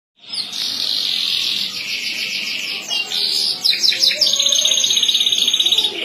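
Domestic canary singing an unbroken song of fast trills. About four seconds in it settles into a rapid, evenly pulsed rolling trill.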